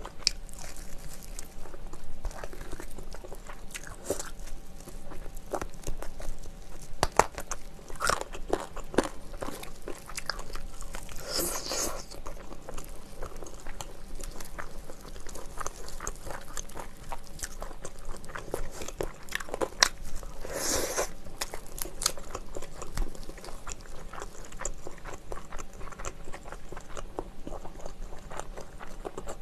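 Close-miked biting and chewing of sauced fried chicken, with crunches of the coating and many small clicking mouth sounds. Twice, about a third of the way in and again about two-thirds in, a brief, louder rustling noise.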